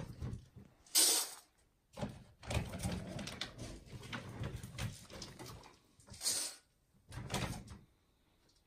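Rustling and scuffling as a litter of young puppies squirms and crawls over denim bedding, with several short scraping hisses.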